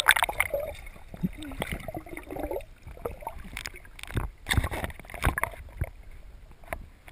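Sea water sloshing and gurgling, heard muffled from just below the surface, as a dog paddles by. Several sharp splashes or knocks come between about three and a half and five and a half seconds in.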